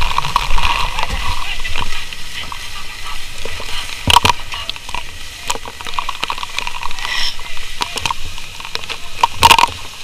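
Fire hose water jet spraying against a burning wooden wall, a steady splashing and spattering hiss, with many sharp clicks and knocks throughout.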